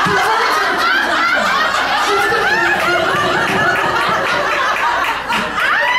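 Comedy club audience laughing, many voices overlapping. Near the end a rising, siren-like tone comes in.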